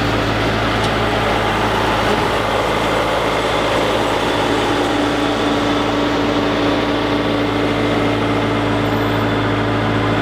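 A vehicle engine running steadily at constant speed, a low, even hum that holds the same pitch throughout.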